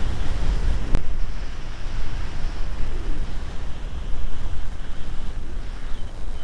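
Wind buffeting the microphone of a camera carried by a skier moving downhill: a loud, gusty rumble. A single sharp click about a second in.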